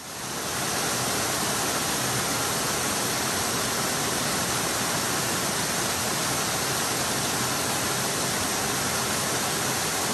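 A wide, low waterfall pouring over a rock ledge into a pool: a steady rushing of water that fades in quickly at the start and then holds level.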